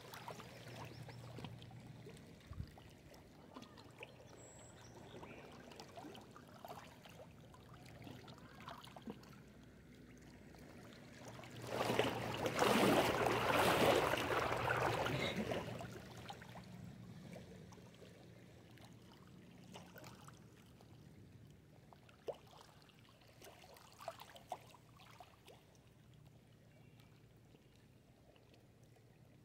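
Small waves lapping against a rocky lakeshore, with little splashes and trickles over the stones. About twelve seconds in, a bigger wave washes in over the rocks for a few seconds, the loudest part.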